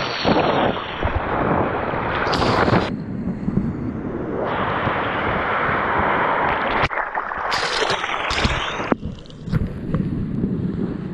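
Water splashing and the rush of small breaking waves close against a surfboard-mounted action camera, with wind buffeting the microphone. The whitewash rush is densest around the middle, and several sharp splashes break through.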